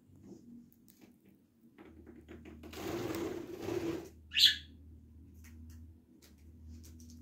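Budgerigar giving one short, loud, sharp chirp about four seconds in, after a few faint clicks and a second or so of soft scratchy noise.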